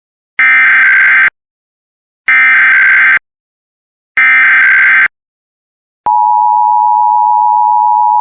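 Emergency Alert System SAME header: three identical bursts of digital data tones, each just under a second with a second's silence between, marking the start of an alert. About six seconds in, the steady EAS attention tone begins and holds.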